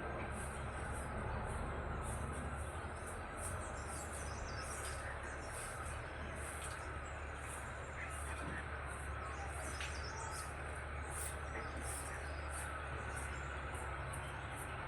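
Birds chirping in a morning outdoor ambience, with short scattered calls. A very high-pitched call repeats about twice a second over a steady low rumble.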